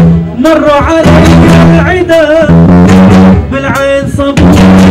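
Live band music: a male vocalist sings an ornamented, wavering melody over strummed acoustic and electric guitars.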